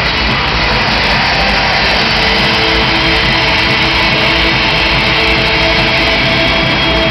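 Loud, steady roar of vehicle engines in an arena, without a break.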